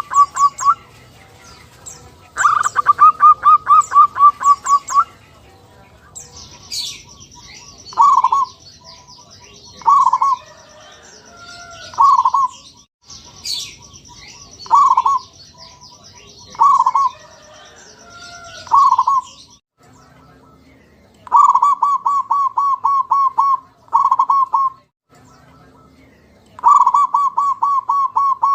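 Zebra dove (perkutut) cooing. Quick runs of short, even staccato notes alternate with single coo notes spaced about two seconds apart. A high, even trill from another small creature runs behind the middle part, and faint small-bird chirps come near the end.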